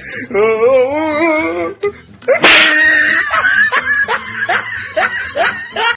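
A wailing voice with a wavering pitch, then a short sharp noisy burst about two and a half seconds in, followed by quick repeated voice sounds like laughter.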